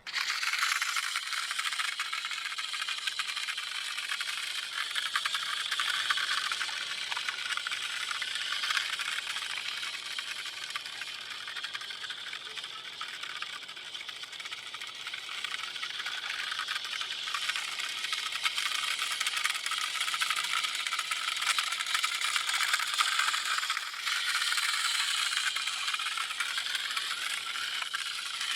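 A 1980s Taiyo RC Chevy truck running under remote control: its small electric motor and gearbox whirr steadily with a plastic rattle, the pitch shifting a little now and then as it speeds up and slows.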